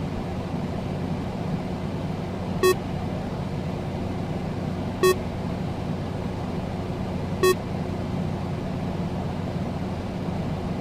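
A steady low electrical hum with a faint hiss underneath, and a short low electronic beep that sounds three times, about every two and a half seconds.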